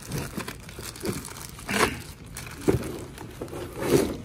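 Clear plastic wrap crinkling as it is pulled and gathered off a packaged grille, in several uneven bursts, the loudest near the end.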